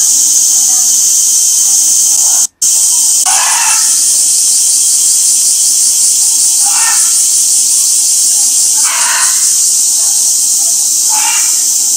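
Loud, steady cicada chorus, a high shrill buzzing drone. Four short, lower bursts of sound come a few seconds apart over it. The sound cuts out for an instant about two and a half seconds in.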